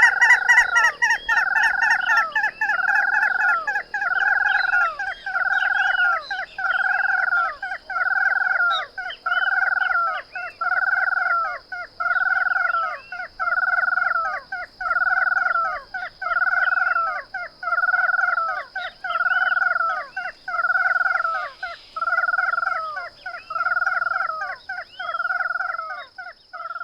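Ash-throated crake calling: a long series of identical buzzy, rising-then-falling notes, about one every second and a bit, repeated steadily.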